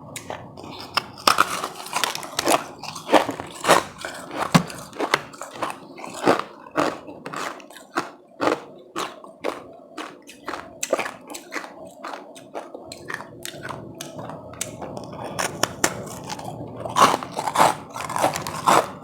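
A person biting and chewing frozen powdery ice: a quick, irregular run of sharp crunches, several a second, closely miked.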